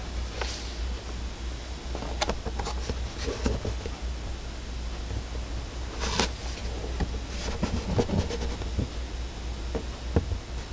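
Cardboard figure box handled by hand, with scattered taps, scrapes and rustles as it is lifted and turned, over a steady low hum.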